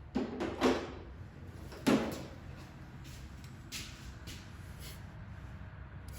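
Knocks and clatter of tools and engine parts being handled during ignition coil and spark plug removal: a cluster of knocks in the first second, a sharper knock about two seconds in, then a few lighter taps, over a steady low hum.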